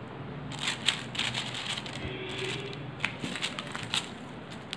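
A piping bag filled with meringue crinkling and crackling as a hand squeezes it to pipe small mounds, in a run of irregular faint crackles.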